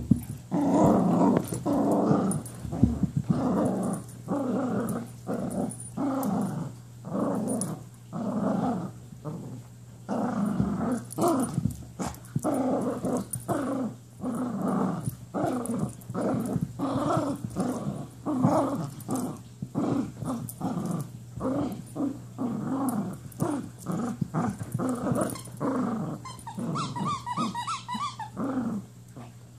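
Poodle play-growling at a person's hand, in repeated growls about a second apart. Near the end the growl turns higher-pitched.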